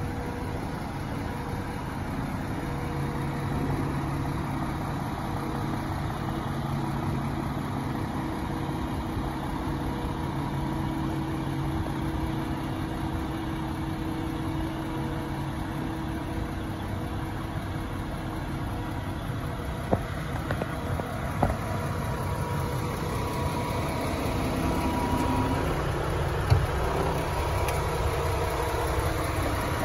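A 2016 DAF XF460 tractor unit's PACCAR MX-13 six-cylinder diesel idling steadily, with a few short clicks in the second half.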